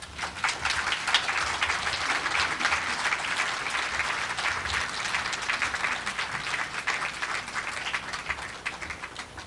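Audience applauding, starting suddenly and thinning out near the end.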